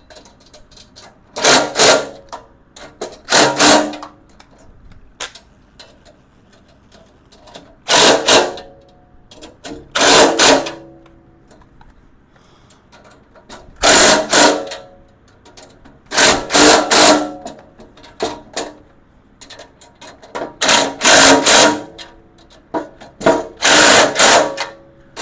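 Electric driver running in short bursts, about ten of them, often two close together, driving in and tightening the tool cart's bolts during assembly.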